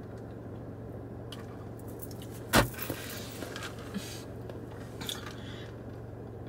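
Iced coffee sipped through a straw, with soft sucking and squishing sounds and a few small ticks. A single sharp knock comes about two and a half seconds in, over a steady low hum in the car cabin.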